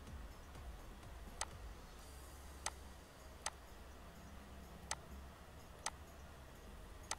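Six sharp computer-mouse clicks, unevenly spaced about a second apart, over a faint low hum.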